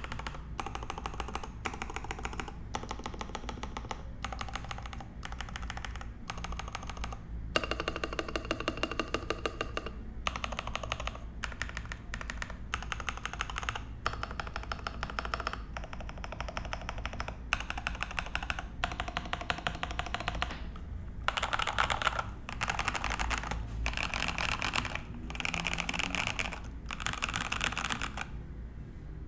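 Typing on a RAMA U80-A custom mechanical keyboard with lubed and filmed Epsilon switches, a brass plate, PBT keycaps and a silicone dampener inside. Rapid key clacks come in runs of a second or two, with short pauses between.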